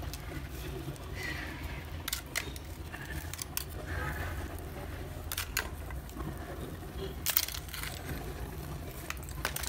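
Gloved hands handling brittle slabs of roasted multani mitti (Fuller's earth clay), with scattered sharp clicks and taps as the pieces knock and crack against each other, over a steady low hum.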